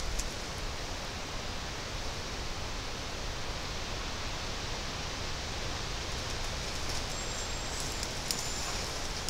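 Strong wind blowing through leafy taiga undergrowth: a steady rustling hiss of shaking foliage. Near the end, two faint, high, thin whistles.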